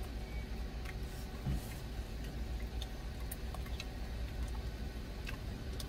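A plastic spoon clicking and scraping in a plastic food container as rice is mixed into spicy stir-fried octopus, a scatter of light separate ticks over a steady low rumble.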